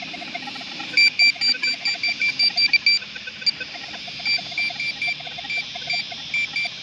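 Metal detector beeping quickly in short high tones, about four to five a second, with a brief pause midway, as it picks up metal still left in a freshly dug hole, which the detectorist takes for leftover bits of an old pocket watch or iron.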